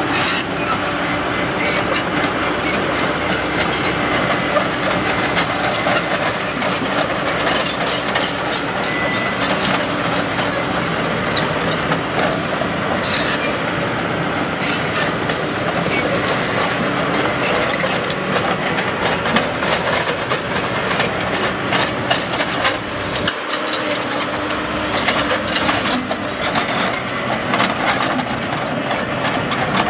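Caterpillar 312C excavator's diesel engine running steadily under digging load, with the hydraulics working and frequent clanks from the bucket and linkage.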